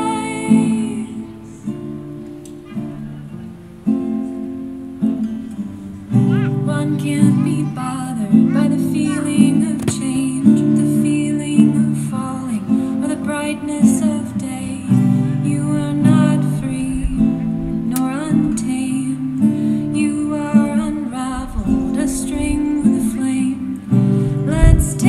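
Music: a guitar playing plucked and strummed notes, with some notes sliding in pitch.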